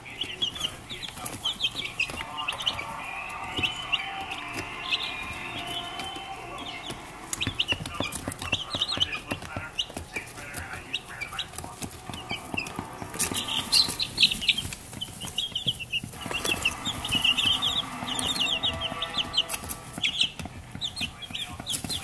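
A brood of baby chicks peeping: many short, high cheeps overlapping throughout.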